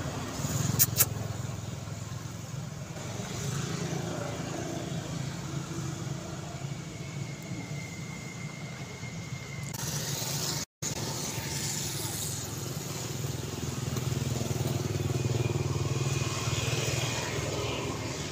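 Steady low hum of a motor vehicle engine running in the background, with two sharp clicks about a second in. The sound cuts out for an instant partway through.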